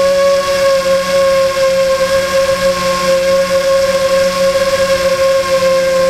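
Electric motor and propeller of an FPV model aircraft, heard close from its onboard camera: a steady whine holding nearly one pitch, with a hiss underneath.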